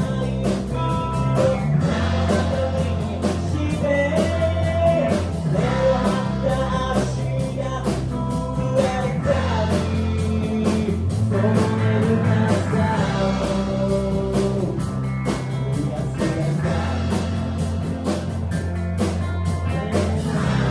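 A live rock trio of guitar, bass guitar and drums plays a song, with a steady beat and a melodic line bending over a sustained bass.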